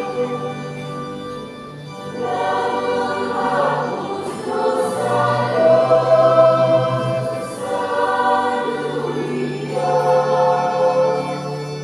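Church choir singing a hymn in several voices, in long held phrases with short breaks between them.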